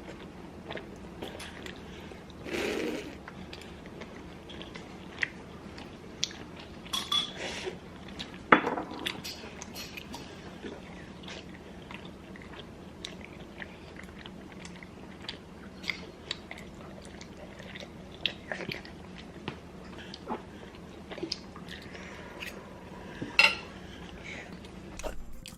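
Close-miked eating of noodles: utensils clicking and clinking against a bowl, with chewing between. A few louder clinks stand out among many small clicks.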